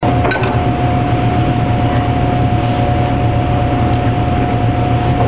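Steady, loud drone of commercial kitchen machinery: a low hum with a constant whine on top, and a few light clicks at the start.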